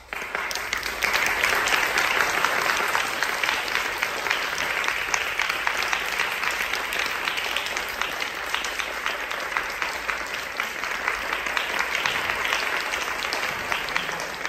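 Concert-hall audience applauding steadily to welcome the players and conductor before the performance. It starts suddenly and begins to die away at the very end.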